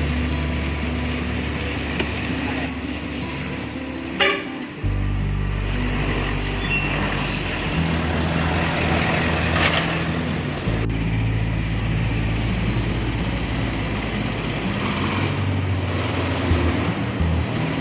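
Tour coach diesel engines running and idling, a steady low hum that changes pitch a few times as buses move. A sharp clack comes about four seconds in.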